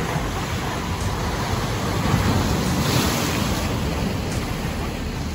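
Ocean surf washing in on a beach, a wave swelling to its loudest about two to three seconds in and then easing off.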